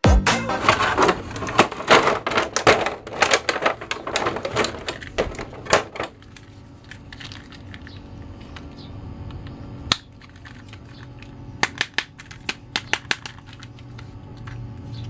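Dance music with a steady beat for about six seconds, then it stops and a quieter stretch follows of plastic handling: a crinkly clear plastic bag and a hard plastic toy shield and action figure being handled, giving scattered sharp clicks and crackles, one on its own about ten seconds in and a quick cluster a little later.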